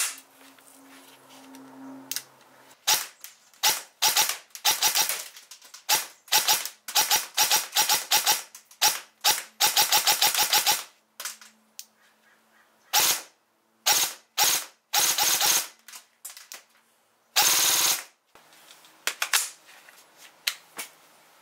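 ASG CZ Scorpion EVO 3 A1 electric airsoft gun firing. About three seconds in it starts with short strings of shots, then fires longer full-auto bursts with pauses between them; the longest runs about four seconds.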